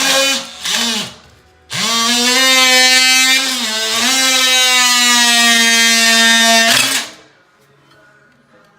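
Oscillating multi-tool cutting into a PVC toilet flange: a short burst, a second brief burst, then a steady whine of about five seconds that dips briefly in pitch midway before cutting off.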